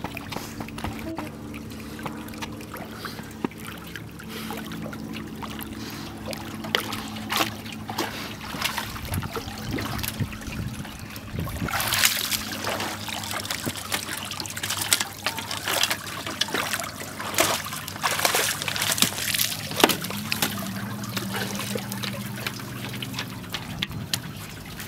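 Dog swimming, then splashing loudly about halfway through as it hauls itself up a metal dock ladder out of the water. After that comes a run of drips, splashes and patters as water streams off its coat onto the wooden dock.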